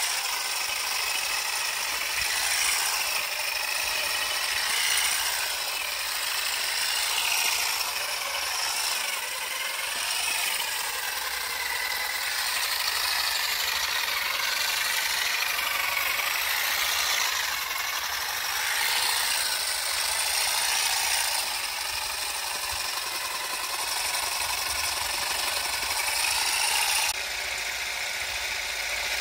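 GeoTech Olive Picker 400 EVO battery-powered olive harvester running steadily, its two red comb heads beating rapidly and clattering through olive branches and leaves to shake the olives down. The sound changes slightly near the end.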